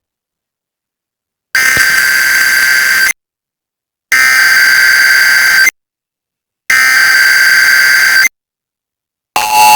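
Emergency Alert System SAME header: three bursts of digital data tones, each about a second and a half long, with about a second of silence between them. Near the end, the steady two-tone EAS attention signal begins.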